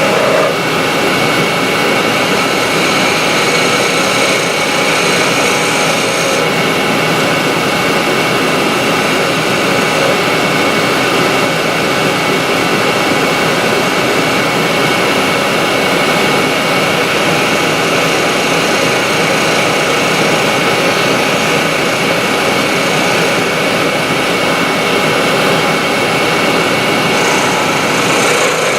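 Union Jubilee wood lathe running steadily, with a small hand-held turning tool cutting into a small spindle. The high part of the sound shifts about six seconds in and again near the end.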